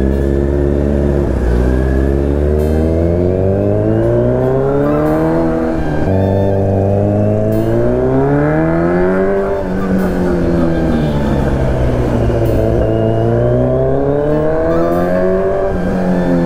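Kawasaki Z900's 948 cc inline-four running through a full-system SC-Project aftermarket exhaust, ridden under hard acceleration through the gears. The revs climb, then drop sharply at each upshift, several times over, with one easing-off in between.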